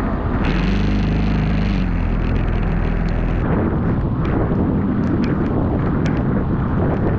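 A vehicle driving through water on a flooded road, its engine hum and tyre spray heard for the first few seconds. After that, heavy rain and water running along the roadside toward a street drain, with wind on the microphone and scattered drops ticking.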